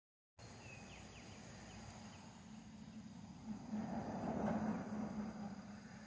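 Outdoor background noise: a steady hiss and low hum that swells for about two seconds around the middle, then settles back.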